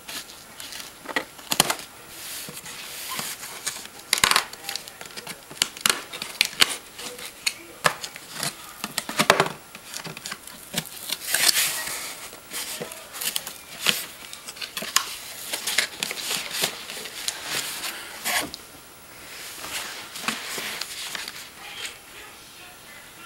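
Scissors snipping and slicing through packing tape on a cardboard box, then cardboard flaps being pulled open and paper rustling as the contents are handled: many short, sharp clicks, tears and crinkles.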